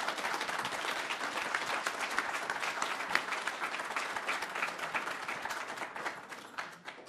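Audience applauding, many hands clapping steadily, dying away near the end.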